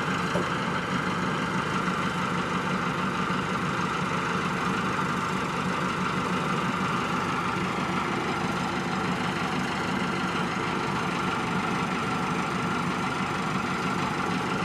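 Forklift engine running steadily at idle.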